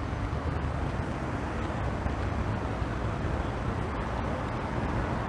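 Steady road traffic noise from a busy city street: motor traffic passing continuously, with a low rumble.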